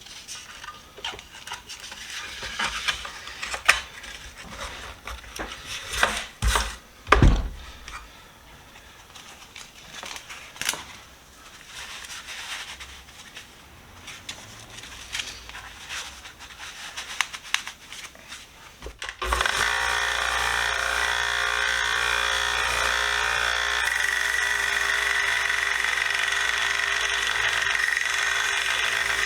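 Scattered clicks and knocks of handling for about nineteen seconds, with a few louder knocks around a quarter of the way in. Then a wire wheel's electric motor switches on suddenly and runs steadily.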